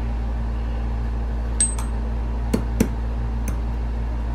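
Small steel gun parts clicking and clinking lightly as they are handled on a bench mat: a few soft ticks, one with a brief high metallic ping, and a sharper click near the end, over a steady low hum.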